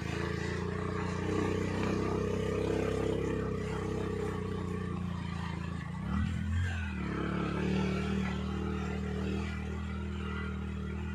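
A motor vehicle's engine running steadily, its pitch shifting briefly about six seconds in.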